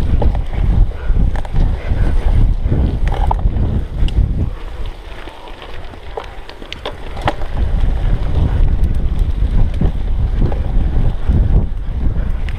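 Wind buffeting the microphone of an action camera riding on a cyclocross bike, mixed with the rumble of the tyres over a rough dirt track and scattered clicks. The noise eases for a few seconds about halfway through and then picks up again.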